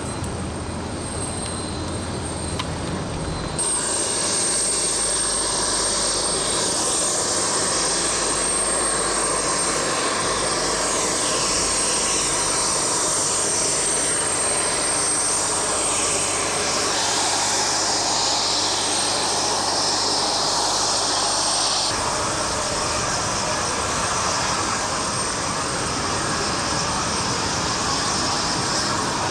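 Beriev A-40 Albatros amphibious jet's twin turbofan engines running as it taxis on the water: a loud, steady rush of jet noise with a high, thin whine on top. The sound changes abruptly twice, about three and a half seconds in and again near twenty-two seconds in.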